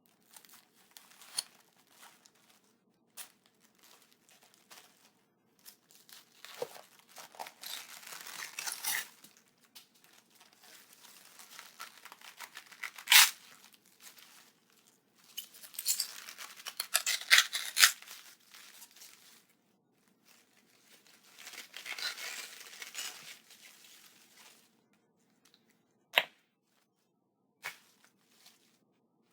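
A head of cabbage being cut up with a knife on a stone counter, pitch-shifted: wet crunching and tearing in irregular clusters with gaps between, and a few sharp single cracks, the loudest about 13 seconds in.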